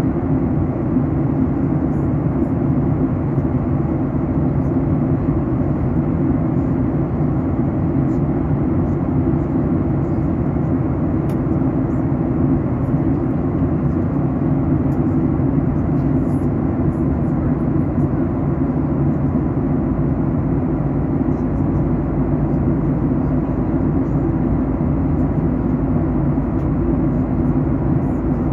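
Steady cabin noise inside a Boeing 737 MAX 8 early in its descent: the drone of its CFM LEAP-1B turbofans and the rush of air past the fuselage, with a faint steady whine.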